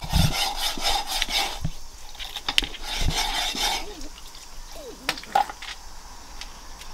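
Rustling, rubbing handling noise in two stretches, with a few light clicks and knocks near the middle and later on, as the phone is moved about close to a plastic cooler.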